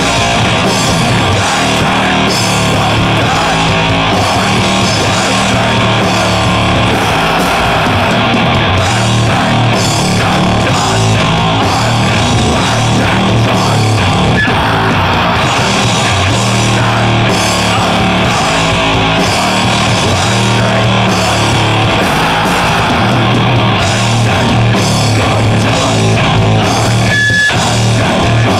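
Heavy distorted electric guitar and drum kit playing loud sludge/grindcore metal, unbroken throughout.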